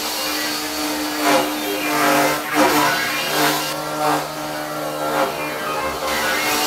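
Genmitsu PROVer CNC router cutting into a wooden board, its spindle humming steadily while the cutting noise swells and fades as the bit moves through the wood. A shop vacuum runs steadily behind it, pulling dust out of the sealed enclosure.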